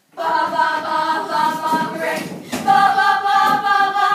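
A small group of young voices singing together a cappella, holding two long sustained notes with a short break about two and a half seconds in.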